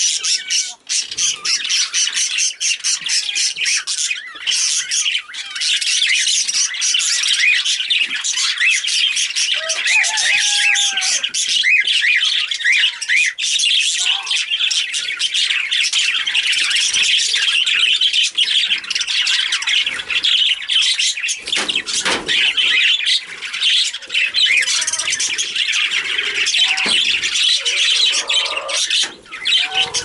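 Several female budgerigars chattering without a break: a busy stream of quick, high chirps and warbles.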